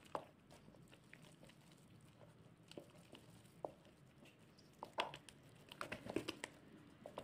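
Faint wet squelching and light taps of a wooden spoon working sticky, oiled dough in a stainless steel bowl. The sounds are sparse at first and come more often in the last couple of seconds.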